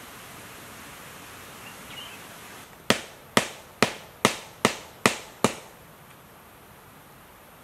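A quick run of seven sharp knocks, a little under half a second apart, starting about three seconds in: blows of a tool on wood. A steady hiss runs under the first part and stops as the knocks begin.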